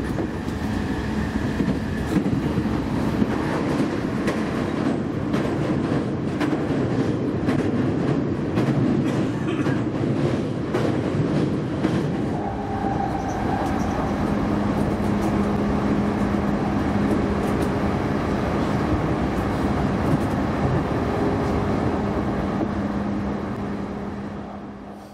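Keihin-Tohoku Line electric commuter train running over a steel girder bridge, heard from inside the car. A steady rumble of wheels on rail with many sharp clacks over the rail joints and a steady low hum, fading out near the end.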